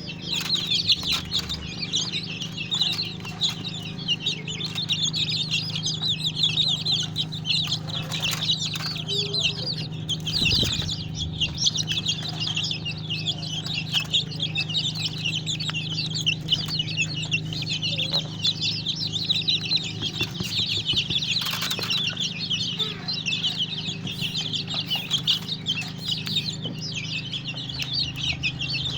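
A flock of young native chickens cheeping continuously, many high peeps overlapping, over a steady low hum.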